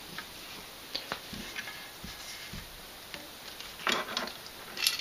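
Light metallic clicks and taps of disassembled Mosin Nagant rifle parts being handled, with a louder cluster of knocks about four seconds in as the barreled action fitted with the Timney trigger is picked up.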